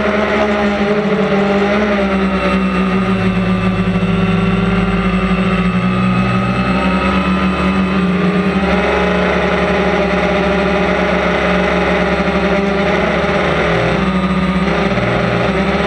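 DJI Phantom quadcopter's electric motors and propellers whining steadily, heard from the GoPro mounted on the drone. The pitch of the hum dips and rises a few times as the motors change speed.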